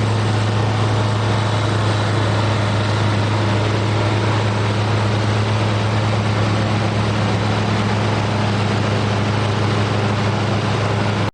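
A steady engine drone with a strong low hum over a constant rushing noise, unchanging throughout and cutting off abruptly at the end.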